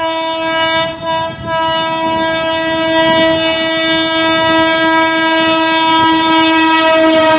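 Electric locomotive air horn honking: a short blast, a brief break about a second in, then one long unbroken blast. Wheel noise of the passing train rises underneath.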